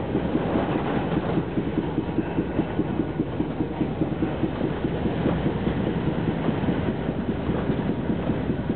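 Tram running along street track, heard from inside the car: a steady low rumble of steel wheels on rails with a fast, uneven rattle.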